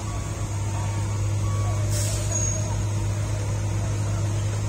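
Heavy diesel engine idling with a steady low drone, and a short hiss of air-brake release about two seconds in.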